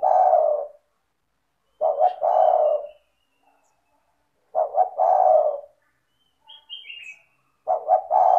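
Spotted dove (tekukur) cooing in repeated phrases, each a few quick notes followed by a longer coo, about every three seconds. A small bird chirps faintly between the phrases.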